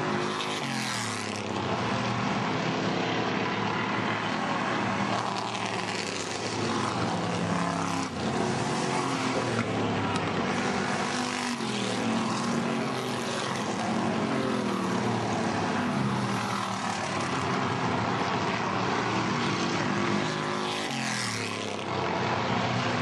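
Hobby stock race cars' engines running hard around a paved oval, several cars' engine notes overlapping. Cars pass close about a second in and again near the end, each engine note dropping in pitch as it goes by.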